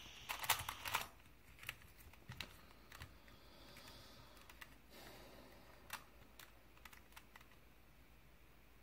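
Plastic clicks of a Crazy 3x3 Plus Mars puzzle cube's layers being turned by hand. A quick flurry comes in the first second, then single clicks follow at irregular gaps and die away after about seven seconds.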